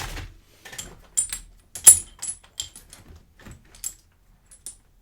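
Small metal lock-picking tools clicking and clinking against each other as they are sorted through, a string of irregular sharp ticks with a bright metallic ring, the loudest about two seconds in.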